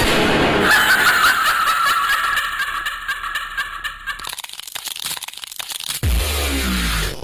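Horror-show backing track playing a high, wavering cackling laugh. It gives way to a run of crackling clicks, then a sudden deep, falling boom about six seconds in.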